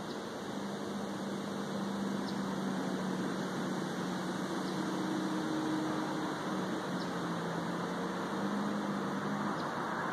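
Distant aircraft droning overhead: a steady rushing noise with a low hum that drifts slowly down and back up in pitch.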